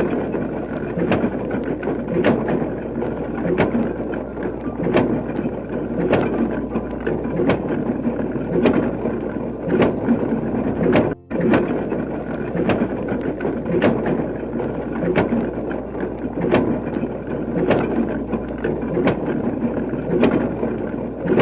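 A machine running with a steady rumbling noise and a regular clank about one and a half times a second, like a construction-vehicle sound effect. It cuts out for a moment about eleven seconds in, then carries on the same way.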